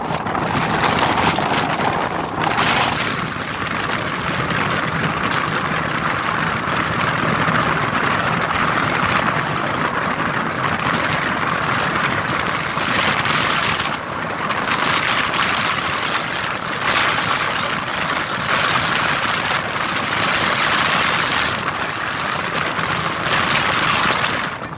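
Steady rushing hiss of water and wind streaming past the bow of a moving motorboat, swelling and dipping every few seconds.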